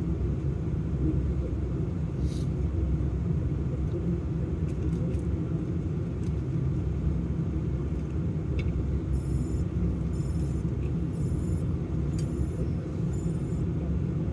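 Low, steady rumble of a vehicle engine idling, heard from inside the cab. Near the end a faint high-pitched beep repeats five times, about once a second.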